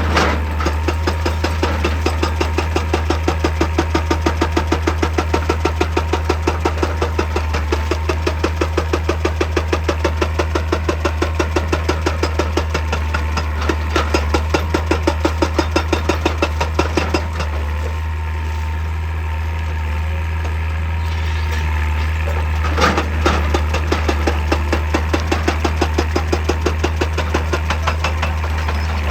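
Excavator-mounted hydraulic breaker hammering rock in a rapid, even rhythm of several blows a second, over the steady drone of the excavator's diesel engine. The hammering stops for about five seconds after the middle, leaving the engine running, then a sharp knock and the hammering starts again.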